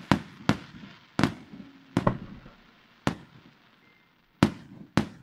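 Fireworks display: aerial shells bursting in a quick series of about seven sharp bangs, each trailing off. There is a lull of about a second before the last two bangs.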